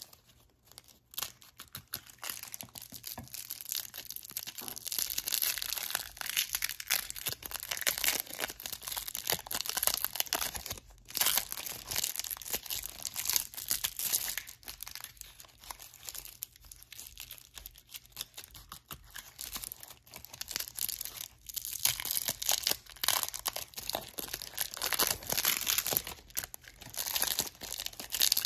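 Clear cellophane wrappers on Push Pop Triple Power candy sticks being crinkled and torn off by hand, a dense, irregular crackling with short pauses about a third and two-thirds of the way through.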